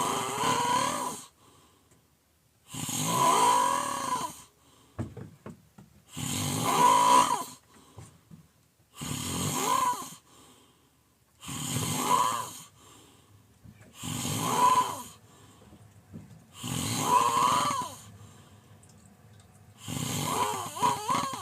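A person snoring loudly in a steady rhythm, one long snore about every two and a half to three seconds, about eight in all. Each snore carries a wavering pitched note, with quiet breaths between.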